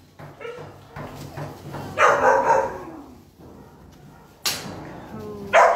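Puppies barking: a loud burst of barks about two seconds in, a sharp single bark a little past four seconds, and more barking starting near the end.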